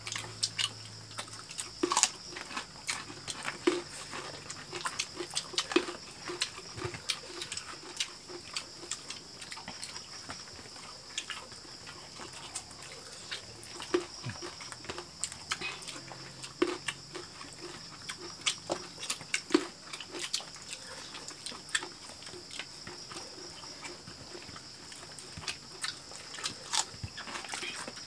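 Several people eating fried chicken and rice with their fingers: close-up chewing, lip-smacking and small mouth clicks, irregular and frequent, over a steady high-pitched background drone.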